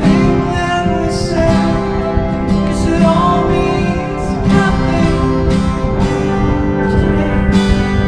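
Background music: acoustic guitar strumming and picking, with a vocal line in places.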